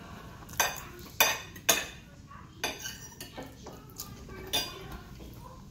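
Metal knife and fork clinking against a plate while food is cut and scooped: three sharp clinks in the first two seconds, then a few softer taps.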